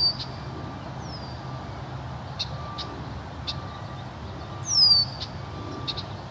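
Wild birds calling: a loud, high, down-slurred whistle right at the start and again near the five-second mark, a fainter one about a second in, and a few short sharp chips between them. A steady low hum runs underneath.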